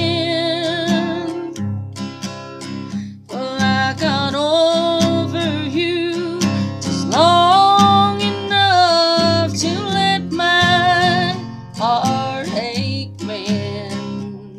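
Acoustic guitar strummed in a steady rhythm, with a woman's voice singing long, wavering held notes over it several times.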